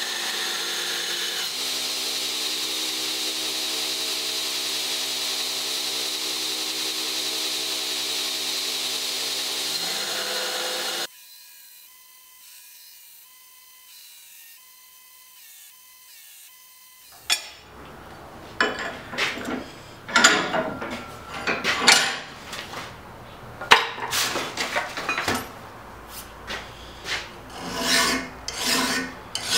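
Belt grinder running steadily as it grinds a forged Damascus steel knife blade, cutting off suddenly about eleven seconds in. After a quieter stretch, a hand file rasps over the steel blade clamped in a vise in uneven strokes.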